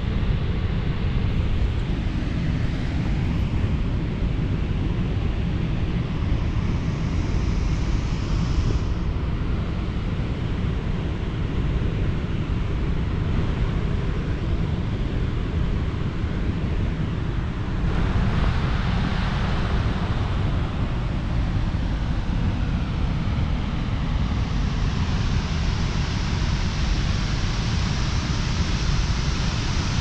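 Steady rushing noise: wind buffeting the microphone over the distant roar of a large waterfall, the hiss brightening twice in the second half.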